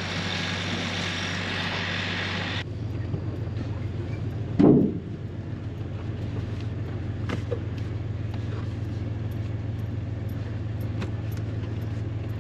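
A vehicle engine running steadily, under a loud hiss for the first couple of seconds that cuts off abruptly. A single loud thump comes about four and a half seconds in, followed by a few light knocks.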